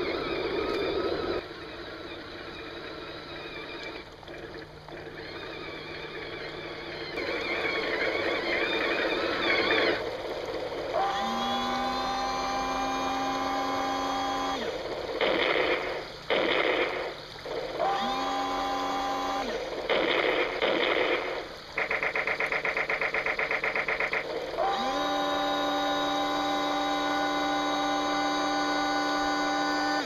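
Remote-control toy M1A1 Abrams tank's small electric motors and plastic gears whirring as it crawls over forest litter. Later it gives a pitched whine that rises as it starts, three times, with short loud bursts and a fast even rattle in between.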